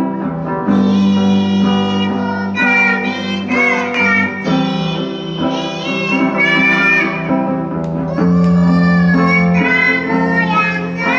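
A group of young girls singing to an acoustic guitar accompaniment.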